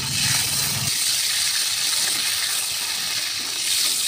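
Blanched mushrooms sizzling steadily in hot oil in an iron kadhai as they are stirred and lifted out with a metal slotted spoon. The sizzle is strong because water from the blanching has got into the oil. A low hum underneath stops about a second in.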